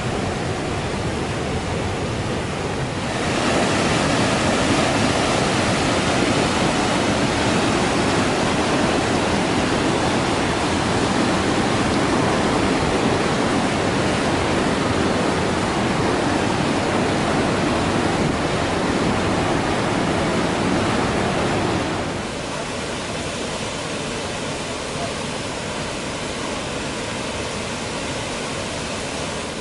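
Temperance River rushing through a rock gorge and over small waterfalls: a steady rush of white water. It gets louder about three seconds in and drops back to a quieter rush about twenty-two seconds in.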